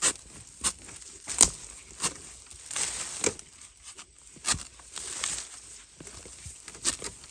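Dry bamboo leaf litter crackling and rustling, with irregular sharp knocks and scrapes as a long-handled metal-bladed digging tool is worked in around the base of a bamboo clump to get at a bamboo shoot. The loudest knock comes about a second and a half in.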